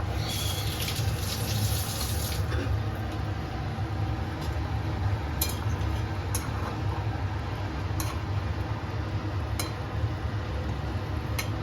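Thin hilsa fish curry boiling and bubbling in a pan over a steady low hum, with a hiss in the first couple of seconds and a few sharp clicks scattered through.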